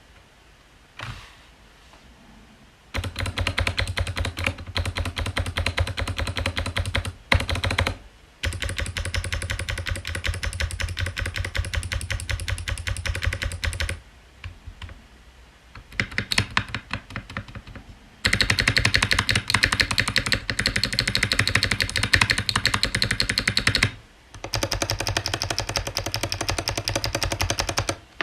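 Fast typing on a mechanical keyboard with Kailh Box Jade clicky switches in a Tofu65 aluminium case: rapid, sharp, deep-sounding clicks in long bursts, with short pauses between them. The first couple of seconds are nearly quiet apart from a few isolated key presses.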